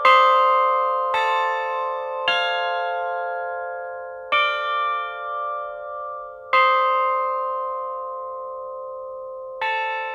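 Cast bronze church bells struck one at a time, six strokes at uneven intervals and at different pitches, each ringing on and slowly fading under the next.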